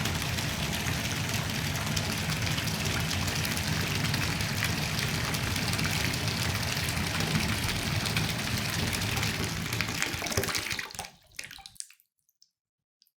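Tap water running steadily into a filling bathtub, an even rushing splash. It breaks up and stops near the end, with a few last splashes.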